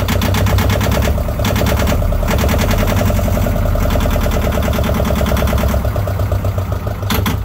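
Yanmar 2GMY two-cylinder marine diesel running steadily with a fast, even chop. It has the healthy direct-injection sound that shows good compression.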